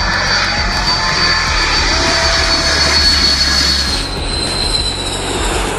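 Jet airliner engines on low final approach, a loud steady rush with a high whine that falls slightly in pitch. The sound changes abruptly about four seconds in, as another low-passing jet takes over.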